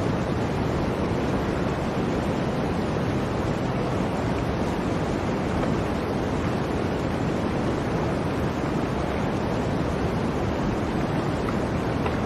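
Blizzard wind blowing steadily, a dense even rush of noise with no let-up.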